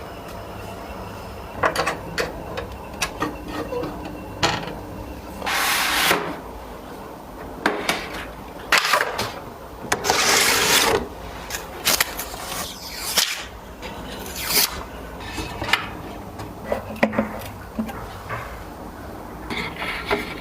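Handling noises of computer parts being fitted together: a string of sharp clicks and knocks with several longer scraping, rubbing sounds, the longest about a second each.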